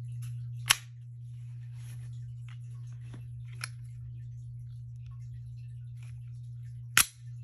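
Sharp clicks from handling airsoft pistols: a loud one just under a second in, a fainter one midway and another loud one near the end, over a steady low hum.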